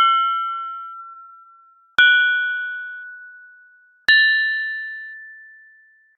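Metal pipes struck one at a time, about every two seconds, each ringing out with a clear tone that fades away. Each strike rings a little higher in pitch than the last.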